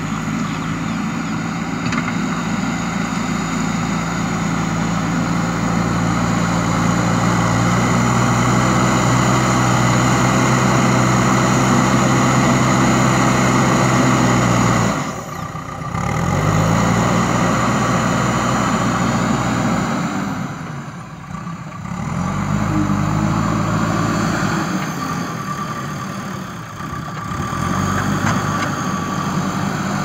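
JCB 3DX Super backhoe loader's diesel engine working under load as the front bucket pushes soil. It runs hard and steady for about fifteen seconds, then drops off and picks up again several times as the machine changes direction.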